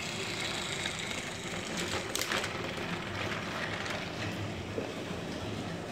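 Battery-powered Plarail toy train running along plastic track: a steady small-motor whir with wheel rattle, and a short cluster of clicks about two seconds in.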